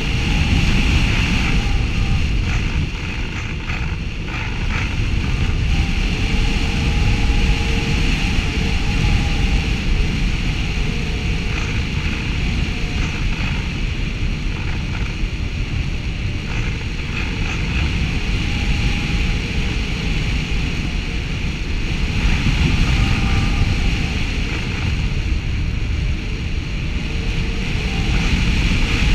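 Rushing airflow buffeting the microphone of a camera mounted on an aircraft in flight. It makes a loud, steady wind rumble with a hiss above it, swelling and easing slightly, and a faint whine that comes and goes.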